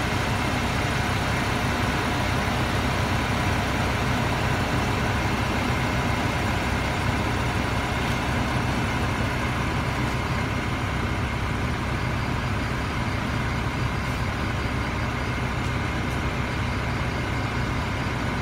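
Large coach bus engine idling with a steady, unchanging hum.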